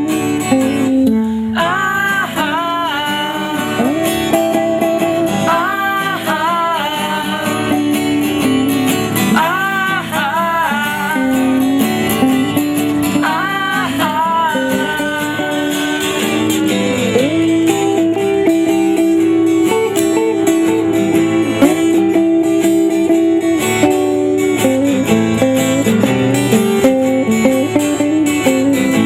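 A band plays an instrumental passage of a song between verses: strummed acoustic guitar under a wavering lead melody that is strongest in the first half.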